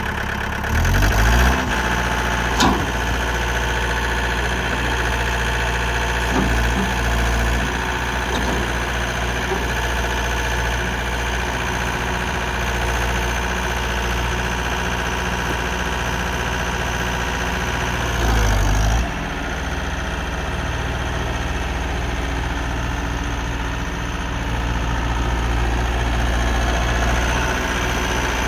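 John Deere 4320 compact tractor's three-cylinder diesel engine running steadily at idle. The engine note rises briefly twice, about a second in and again about two-thirds of the way through, and there is one sharp click early on.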